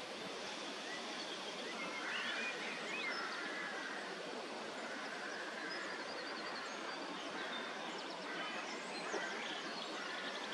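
Steady outdoor background hiss with small birds chirping faintly now and then.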